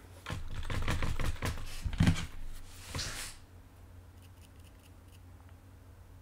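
Rapid clicking and tapping at a computer desk for about three seconds, with two louder knocks about two and three seconds in.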